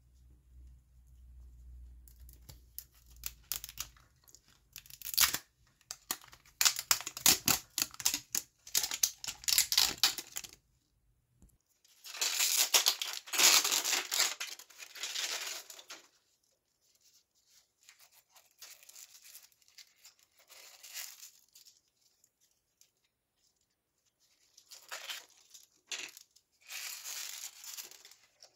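Printed plastic wrapper being torn and peeled off a plastic toy ball, crinkling in several bursts with short pauses between; loudest about halfway through.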